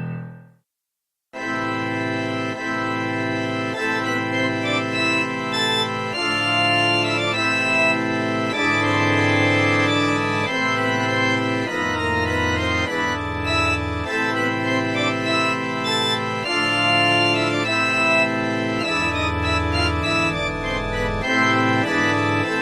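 Music score on sustained organ chords, changing every second or two, starting about a second in after a brief silence.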